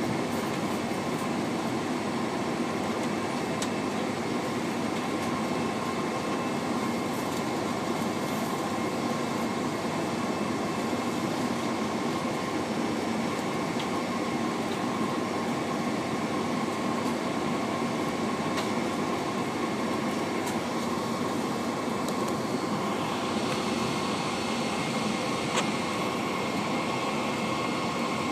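Cabin noise inside a Boeing 747-436 taxiing, its Rolls-Royce RB211-524H engines at idle: a steady rushing hum with a constant whine, and a few faint clicks and rattles from the cabin.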